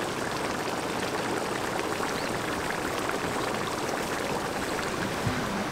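Volcanic hot-spring pit bubbling with a fast, steady gurgling, the sound said to resemble sparrows.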